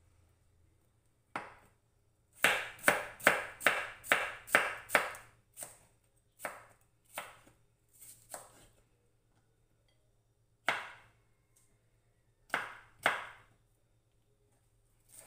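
Chef's knife chopping a yellow bell pepper on a wooden cutting board: a quick run of about eight cuts, then slower scattered cuts with pauses between them.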